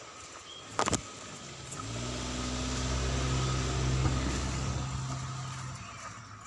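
A motor vehicle passing close by, its low engine hum swelling and then fading over about four seconds. A single sharp knock comes about a second in, before the vehicle.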